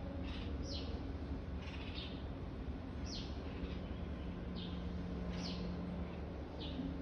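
Small birds chirping: short, high, falling chirps repeated every half second to a second, over a steady low hum.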